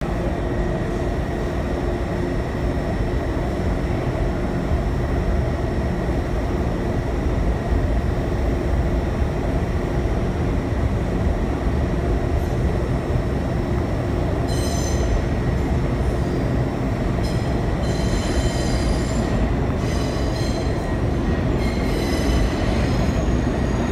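New York subway train at the platform with a steady low rumble and a faint hum. From a little past halfway, steel wheels squeal on the rails in repeated high-pitched bursts.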